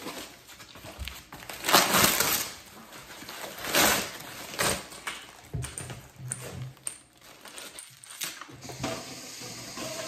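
Rustling and crinkling of foam packing wrap pulled off a folding chair's legs, in several loud bursts, with a few clicks and knocks as the legs are handled.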